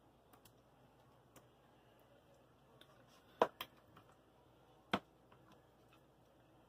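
Scattered light clicks and taps as meat sauce is scooped with a cup and spread into a foil baking pan, with two sharper knocks about three and a half seconds in and one about five seconds in.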